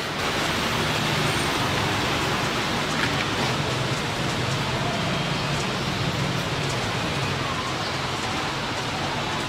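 Steady rushing background noise with a faint low hum, of the kind made by nearby road traffic.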